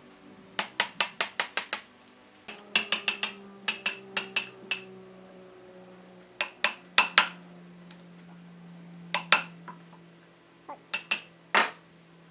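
Quick runs of sharp, ringing hammer taps, about five a second, broken by short pauses, with single louder blows near the end, over a faint steady hum.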